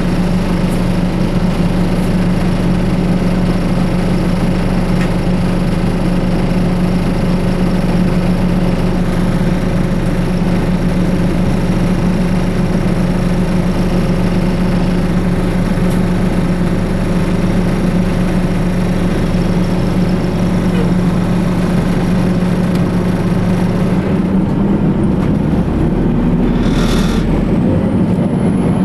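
The Detroit Diesel Series 50 EGR diesel engine of a 2004 New Flyer D60HF articulated bus idling steadily, heard on board. Near the end there is a short hiss of air, and then the engine note rises as the bus pulls away.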